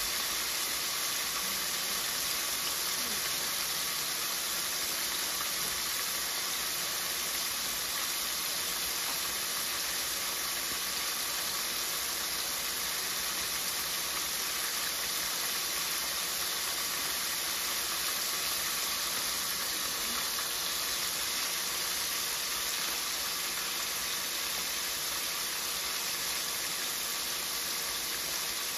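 Hot oil sizzling steadily around small whole fish frying in a deep pan, an even hiss that does not let up.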